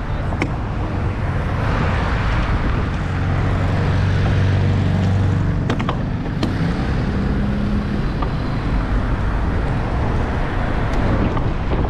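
Road traffic: a motor vehicle's engine hum swells and fades about four to six seconds in over a steady rushing noise, with a couple of sharp clicks around the middle.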